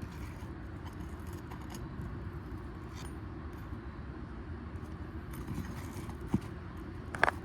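Light metallic clicks and scrapes of a metal roofing tool working at asphalt shingles and nails, over a steady low rumble. There is a knock about six seconds in and a sharper metal clink near the end.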